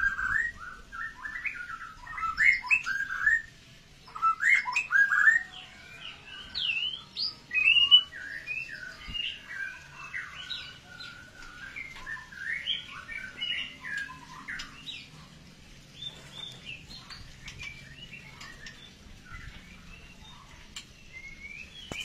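Songbirds in breeding aviaries singing and chirping: a rapid, varied run of whistled and chattering notes. The song is loudest over the first eight seconds or so, then goes on more faintly.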